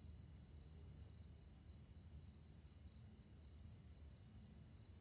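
Faint night ambience of crickets chirping: a steady, pulsing high trill over a low background hum.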